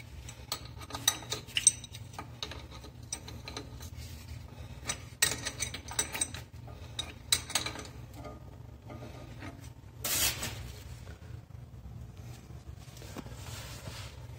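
A metal hand tool clinks, clicks and scrapes against the chrome angle valve and the brass nut of a braided flexible hose as the connection is tightened. The clicks come in scattered clusters, with a longer scrape about ten seconds in, over a low steady hum.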